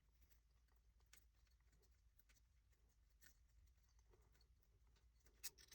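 Near silence: a few faint ticks of small parts being handled as an M3 threaded rod is screwed into a skid tensioner, with a slightly louder click near the end.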